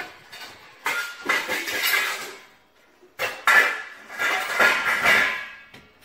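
Metal pots and a lid being handled on a stovetop, scraping and clanking with a ringing tone. It comes in two bouts: a short one about a second in, and a longer one from about three seconds in.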